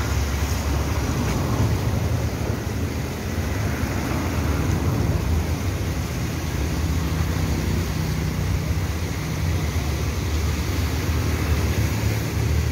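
Floodwater of a swollen river in spate rushing past steadily, a continuous low rumbling noise, with car traffic mixed in.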